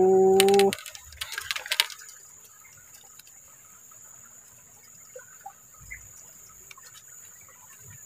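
Quiet streamside ambience: a few sharp clicks about a second in, then faint scattered bird chirps over a steady, faint high-pitched tone.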